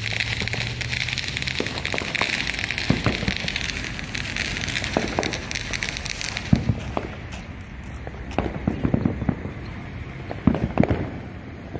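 Consumer fireworks going off: dense crackling for the first half or so, with sharp pops and bangs scattered throughout, bunching into quick clusters near the end.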